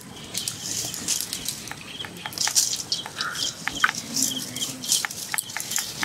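Hands coating raw chicken pieces: squelching them in wet spice-and-egg batter in a steel bowl and pressing them into dry flour on a steel tray, giving soft patting and rustling with many light clicks and taps.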